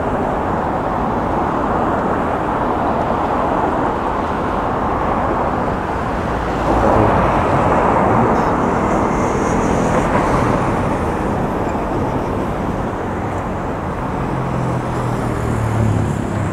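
Street traffic: a steady hum of road noise, swelling louder about seven seconds in as a vehicle passes close, with a low engine hum near the end.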